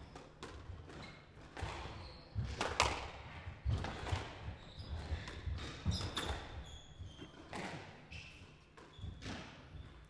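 Squash rally: the ball cracks off the rackets and the court walls at irregular intervals, about one hit every half second, with short squeaks of court shoes on the wooden floor between the hits.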